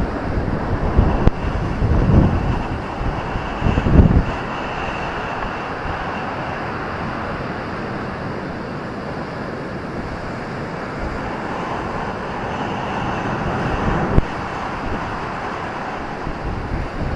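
Ocean surf washing onto a beach as a steady rush of noise, with wind gusting on the microphone in the first few seconds.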